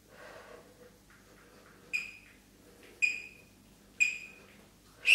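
Workout interval timer counting down: three short high beeps about a second apart, then a louder, longer beep beginning right at the end, marking the end of the hold and the switch to the next exercise.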